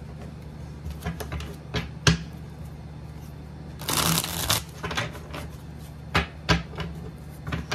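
A tarot deck being riffle-shuffled by hand: scattered sharp clicks and taps of the cards, then a dense flutter of cards riffling together about four seconds in, followed by a few more taps. A steady low hum runs underneath.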